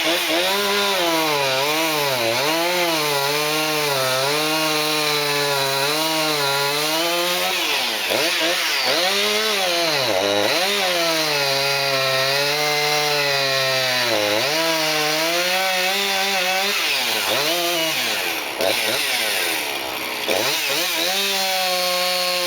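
Two-stroke chainsaw cutting into a Douglas fir, its engine note rising and falling as it works in the cut. The revs drop sharply about ten and fourteen seconds in, the saw breaks off briefly near the end, then runs on at a steady pitch.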